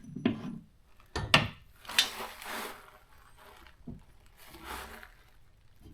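A wooden shelf and its metal shelf hardware being handled and adjusted: a few sharp knocks and clunks in the first two seconds, then short scraping and rubbing sounds.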